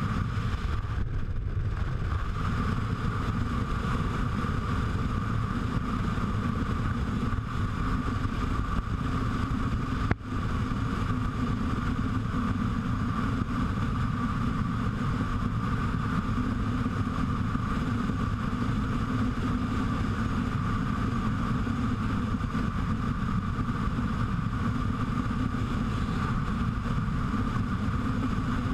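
Motorcycle cruising at a steady highway speed, recorded on a GoPro HERO3: a constant rush of wind, engine and road noise with no change in pace. A single brief click cuts in about ten seconds in.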